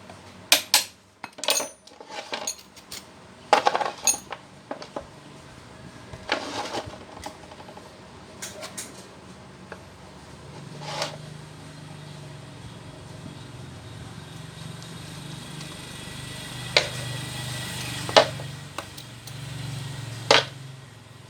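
Metal parts and tools clinking and clanking as they are handled on a workbench, with scattered sharp knocks. There are three louder clanks near the end, and a low hum comes in about halfway through.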